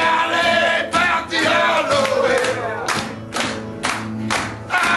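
A group of men singing together, with hand claps in a steady beat, about three a second, from about halfway through.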